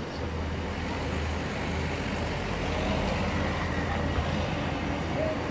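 Road traffic: a car passing close by over steady city traffic noise.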